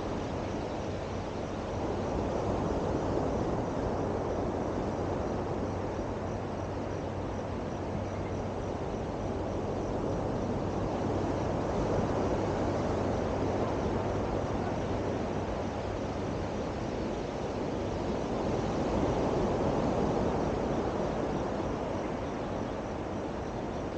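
Steady rushing of sea surf and wind on the open coast, swelling and easing gently a few times. A faint low hum runs underneath and fades out about two-thirds of the way through.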